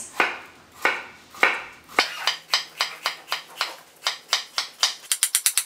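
Chef's knife slicing bitter melon thin on a wooden cutting board, a knock with each stroke. The strokes come slowly at first, settle to about four a second, then speed up to a rapid run of about eight a second near the end.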